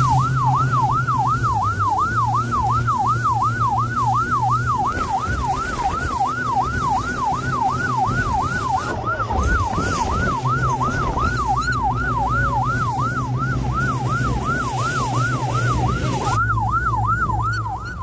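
Patrol boat's electronic siren yelping, its pitch sweeping rapidly up and down about three times a second, over the steady drone of the boat's engine and the rush of wind and water.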